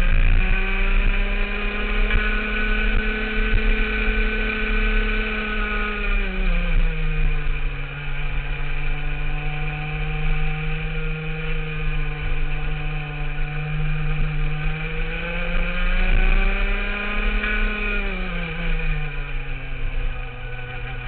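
Rotax Max 125cc two-stroke kart engine running under load on track. Its pitch holds high, drops about six seconds in as the driver comes off the throttle, holds lower, climbs again a few seconds before the end and falls away once more.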